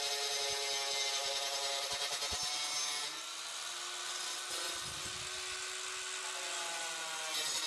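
Small Fort handheld circular saw running with a steady whine as its disc cuts a lengthwise slot in a PVC pipe, with the hiss of the plastic being cut. The sound drops a little about three seconds in.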